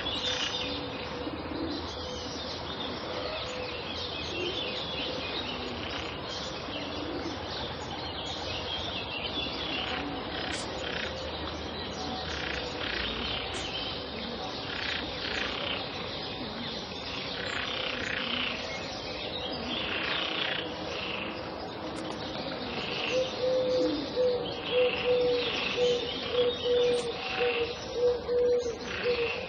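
Pond ambience with many small birds chirping and twittering over a steady background. A lower, pulsing call repeats over the last few seconds.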